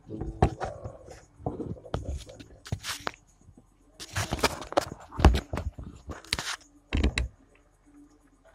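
Handling noise: a string of irregular knocks, taps and scrapes, with a few louder thuds around the middle and again near the end.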